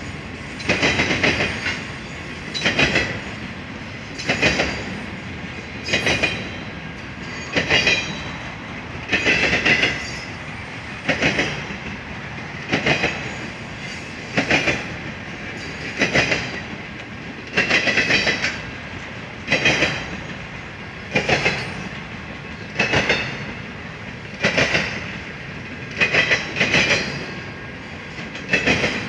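Intermodal freight train rolling past, its car wheels clacking over the track in a steady rhythm: a burst of clicks about every second and a half to two seconds over a continuous rolling rumble.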